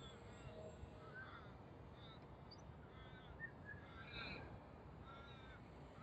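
Australian magpies calling in the distance, a scatter of short warbling notes through the whole stretch, over a faint low rumble of wind on the microphone.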